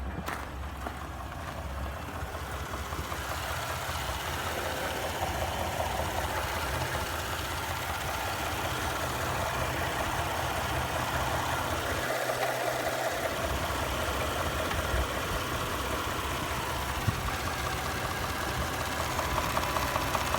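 2017 Ford 3.5 EcoBoost twin-turbo V6 running steadily at idle with a knocking sound from the engine.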